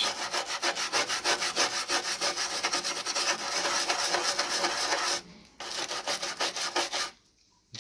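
Stiff brush scrubbing rapidly back and forth over the greasy parts of a Panasonic RX-FS50 radio cassette recorder, about eight strokes a second. It gets lighter after about five seconds and stops shortly before the end.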